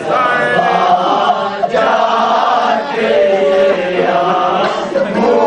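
A man chanting a nauha, a Shia mourning lament in Urdu, into a microphone, unaccompanied, in long held, wavering melodic lines.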